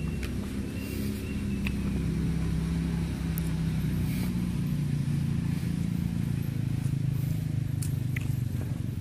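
A steady low engine drone that swells a little in the middle, with a few light clicks over it.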